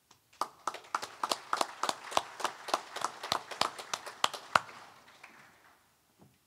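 A small audience clapping. One set of sharp claps stands out at about four a second, and the applause dies away after about five seconds.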